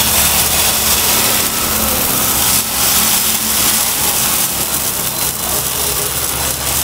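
Oats and gram-flour chilla batter sizzling on a hot oiled tawa as it is spread out with a ladle: a steady hiss over a low, even hum.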